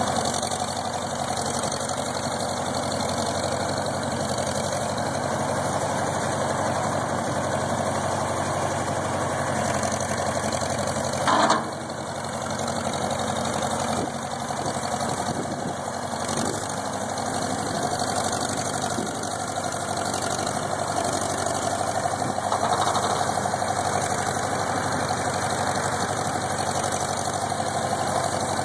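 Farmall M tractor's four-cylinder engine running steadily at low speed as the loader tractor drives slowly, with a single short loud knock about eleven seconds in.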